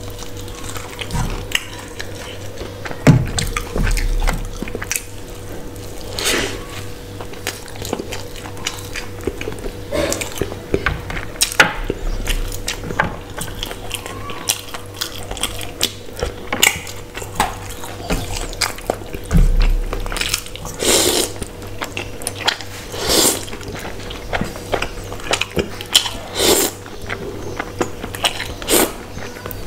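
Close-miked eating: chewing a chicken fry burger, a wooden fork clinking on a steel plate, and slurps of spicy noodles, with several long slurps in the second half.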